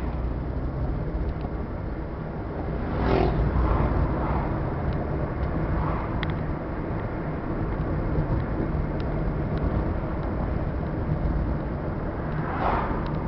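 Car interior road noise: the engine and tyres run with a steady low rumble. A louder rush swells up about three seconds in and again near the end.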